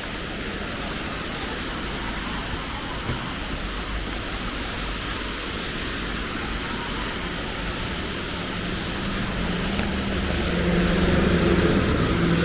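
Steady hiss of falling rain, with a motor vehicle's engine approaching and growing louder in the last few seconds.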